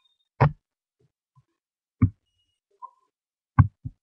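Mouse clicks as the desktop is worked: short single clicks about a second and a half apart, then two in quick succession near the end.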